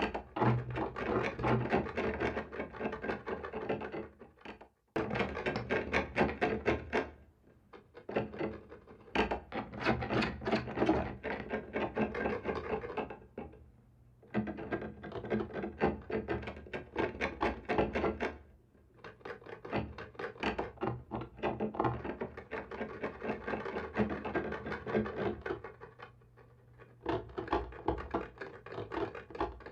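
Scratching on a wall, in rough grating strokes that come in bouts of a few seconds with short pauses between them, about six bouts.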